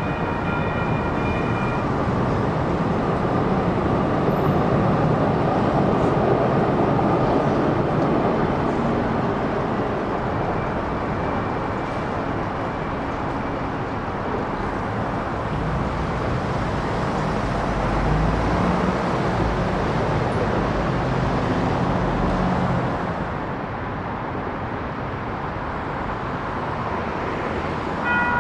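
Railroad crossing bells ringing, stopping about two seconds in; then steady road traffic passing, louder for a few seconds early and with a low vehicle engine hum shortly before the level drops near the end.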